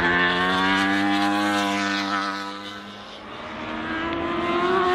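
Yamaha R1 superbikes' crossplane inline-four engines at racing revs on track: one bike passes with a high, slightly rising note that fades away about three seconds in, then a second bike's engine rises in pitch and level as it approaches.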